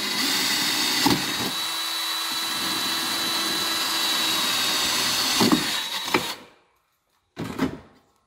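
Cordless drill running as it bores a screw hole through a metal outdoor electrical wall box: one steady whine of about six seconds with a few knocks of the bit in the metal. The whine stops about six seconds in, followed by a couple of short handling knocks.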